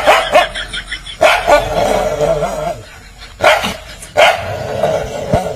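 A black-and-tan dog barking aggressively at its own reflection in a mirror, in about four loud bouts with short pauses between.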